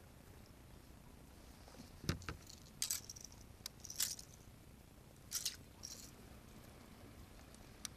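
Handling noise aboard a plastic kayak: a knock about two seconds in, then a string of light clicks and rattles as a fishing rod and its tackle are handled.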